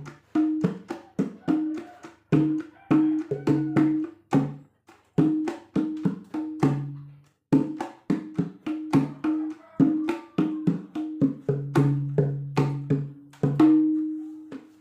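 A gendang hand drum played in a quick rhythm, mixing higher ringing strokes with deeper bass strokes. The playing ends with one longer ringing stroke near the end.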